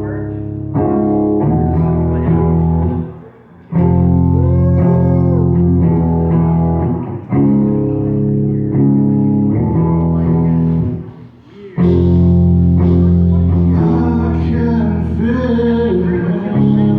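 Live band music led by guitar over bass, playing long sustained chords that break off briefly about three seconds in and again around eleven seconds, with a few sliding notes over the top.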